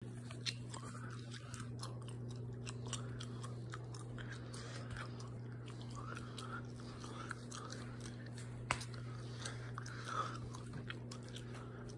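A running wall oven's steady low hum, with scattered faint clicks and crackles over it.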